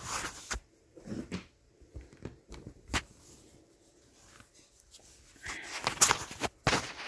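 Handling sounds of small plastic parts, a DC barrel-plug adapter and digital calipers being picked up for a measurement: soft rustling with a few sharp clicks, the loudest cluster near the end.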